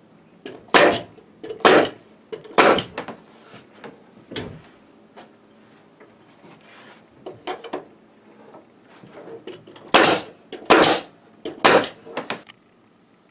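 Pneumatic nail gun shooting nails into wooden lattice strips, each shot a sharp bang with a short puff of air. Three shots about a second apart, a lighter one, a few lighter ones midway, then three more about a second apart near the end.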